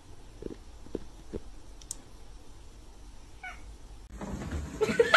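A tabby cat gives one short, quiet meow about three and a half seconds in, against a few faint ticks. Near the end a louder run of short pitched sounds begins.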